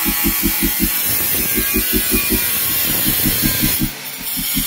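Handheld electric tile cutter running as it cuts through a vitrified floor tile, a steady harsh noise that dips briefly about four seconds in. Under it runs a fast, regular low beat.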